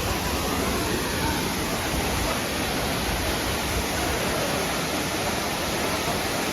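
Steady rushing of Soochipara waterfall's falling water, an even, unbroken noise.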